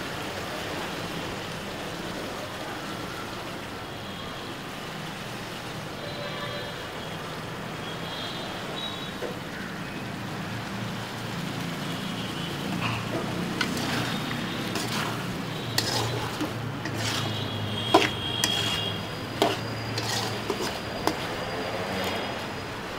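Chicken sizzling as it fries in an aluminium kadai, a steady hiss. In the second half a metal spatula stirs the pieces, scraping and knocking against the pan several times with a brief metallic ring, the loudest knock about two-thirds of the way through.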